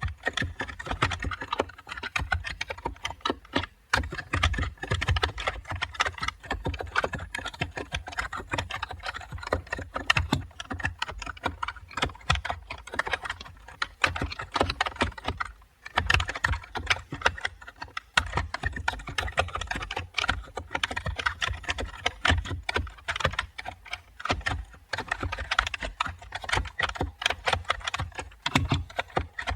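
Continuous typing on a computer keyboard: a dense run of key clicks and thocks, with brief pauses twice.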